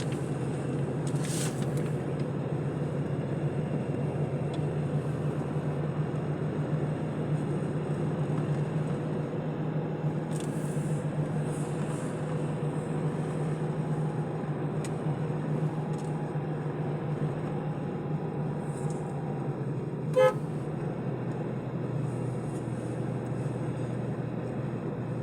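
A car's engine and road noise, heard steadily from inside the cabin as the car climbs a winding mountain road. About twenty seconds in, a vehicle horn gives one short, loud toot.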